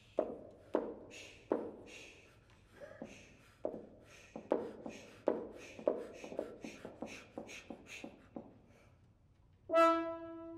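French horns played with short percussive pops and clicks in an irregular series, each with a brief ringing tail. About a second before the end a sustained, steady horn note begins.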